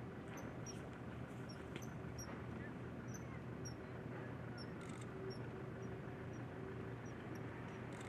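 Common kingfisher calling faintly: a dozen or so short, high peeps spaced irregularly, over a low steady hum, with one brief click about five seconds in.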